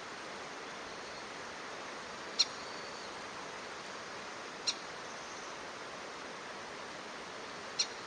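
Three short, sharp, high bird calls, a couple of seconds apart, over a steady hiss.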